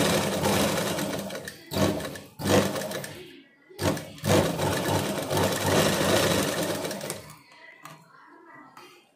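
Sewing machine running in stretches as a collar strip is stitched: a run that fades out after about a second and a half, two short bursts, a brief stop, then another run of about three seconds before it stops. A few faint clicks near the end.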